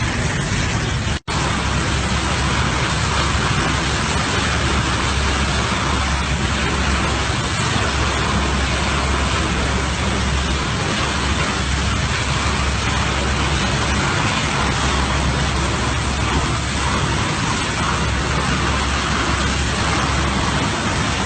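Heavy-equipment diesel engine running steadily, a dense low rumble with hiss over it, cutting out for an instant about a second in.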